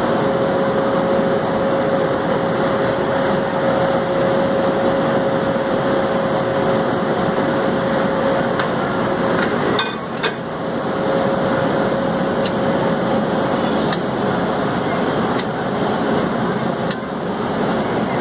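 WAP7 electric locomotive's running machinery giving a loud, steady hum and hiss with a faint steady whine. From about nine seconds in there are sharp metallic clinks every second and a half or so, as the hose couplings and fittings between locomotive and coach are handled.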